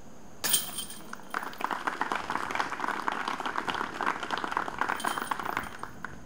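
A disc hitting the metal chains of a disc golf basket with a sudden clink and brief jingle, followed by spectators clapping for about four seconds.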